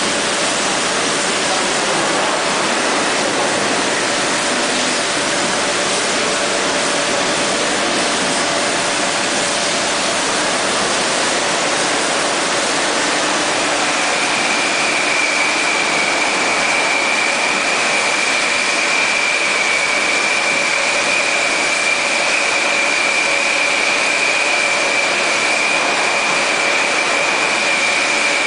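A 6-litre PET bottle filling line running: a loud, steady machinery noise, with a high steady whine joining about halfway through.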